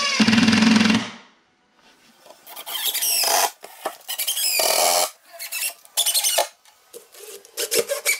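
A cordless impact driver runs for about a second, driving a screw into the wooden step box, then cuts off. After a short pause comes a series of short, high squeaks and squeals with sliding pitch.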